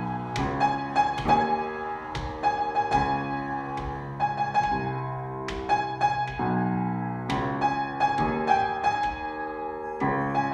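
Grand piano played four hands, an improvised riff: a high note struck again and again over shifting lower chords.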